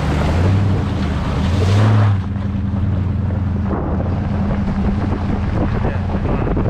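A vehicle fording a shallow creek: water hissing and splashing off the front tyre over a steady engine hum. The splashing stops suddenly about two seconds in, leaving the engine, wind on the microphone and tyres rolling on gravel.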